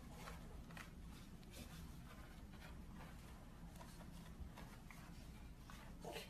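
Faint scratchy rustling of a small dog rubbing and rolling on its back on a carpet, a soft stroke every half second or so, over a low room hum.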